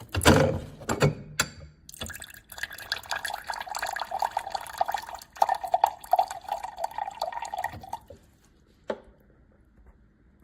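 Water pouring from an Avalon top-loading water cooler into a vessel for about six seconds, then stopping abruptly. It is preceded by a few knocks and clicks, and a single click follows about a second after the flow stops.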